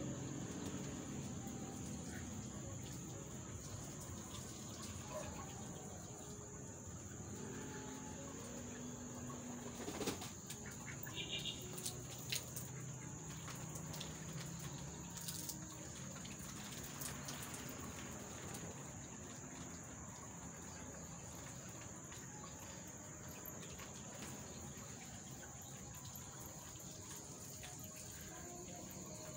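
Water from a garden hose spattering onto the leaves of a tall potted plant, a faint, fairly steady patter, with a few sharp clicks about ten seconds in.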